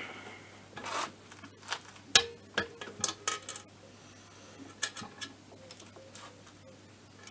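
Light clicks and small metallic rattles of a torque wrench being handled and set to 13 N·m for the crankcase bolts, scattered over the first five seconds and then dying away.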